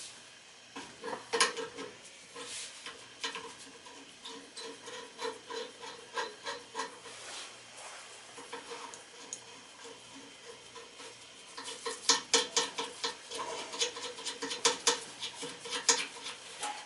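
Irregular metal clicks, clinks and scraping of hand tools working the blower motor's adjustment to set the fan belt's tension, with a quick run of sharp clicks near the end.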